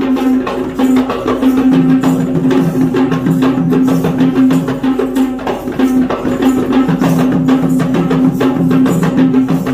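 Kandyan dance drumming on geta bera drums: a dense, rapid beat over a steady sustained note and a short, lower melodic figure that repeats.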